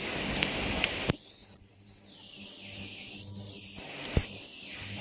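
Ultrasonic welding machine bonding ABS plastic parts, giving off a loud, piercing, steady high-pitched tone. The tone sounds for about two and a half seconds, breaks off briefly at a click, then comes back. A few sharp clicks of the machine come just before it.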